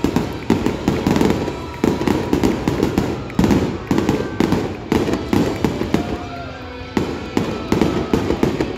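Aerial fireworks: a rapid barrage of overlapping shell bangs, many a second, thinning out over the last two to three seconds as the display's closing volley ends.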